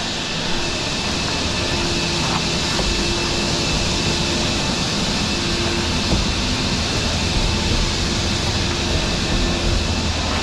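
Heavy diesel engine running steadily, typical of a dump truck idling, with a faint hum that comes and goes.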